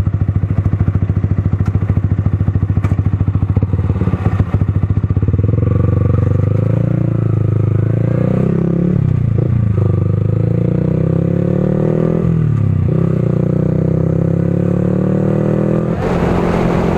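Yamaha R15's single-cylinder engine idling with a steady pulse, then pulling away and accelerating through the gears. The revs climb, drop at upshifts about nine and twelve seconds in, and climb again. Near the end a rush of wind noise joins the engine as the bike runs at speed.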